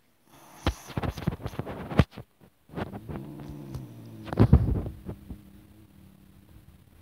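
Close knocks and rubbing, like a phone being handled, with the loudest thumps about two and four and a half seconds in, and a low steady hum for a couple of seconds in between.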